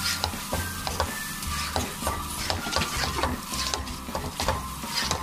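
A spatula stirring and tossing seasoned macaroni in a hot metal karahi, with irregular clicks and scrapes against the pan over a steady sizzle of frying.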